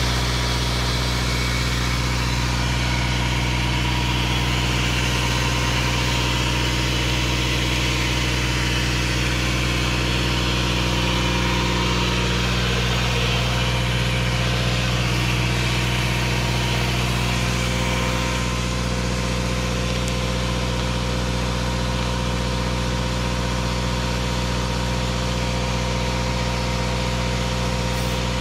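New Holland TL80 tractor's diesel engine running steadily under load, driving an irrigation pump; a constant low drone that does not change speed.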